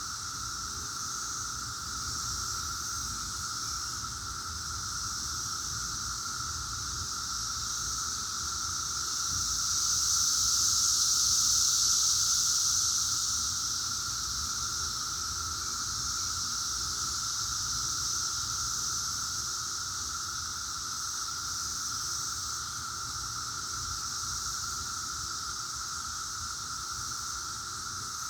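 Dense chorus of 17-year periodical cicadas (Brood X) calling together: a steady high-pitched buzzing with a lower droning tone beneath it. It swells louder about ten seconds in, then eases back.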